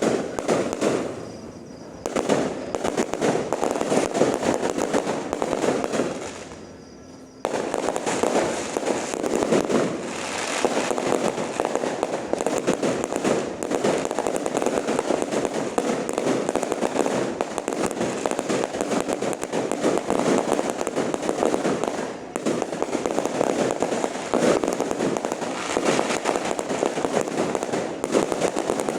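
Fireworks display: a dense, continuous barrage of rapid bangs and crackling, easing off briefly about a second in and again around six seconds in before starting up again suddenly.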